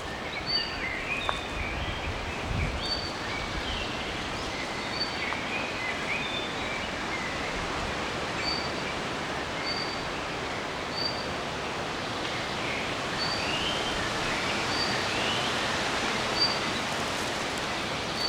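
Forest ambience: a steady rustle of wind in the leaves, with several small birds calling. One repeats a short high note about once a second, while others add scattered chirps and short rising calls.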